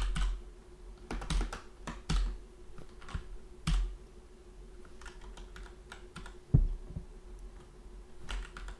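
Computer keyboard typing in short irregular runs of keystrokes, one sharper key strike about two-thirds of the way through.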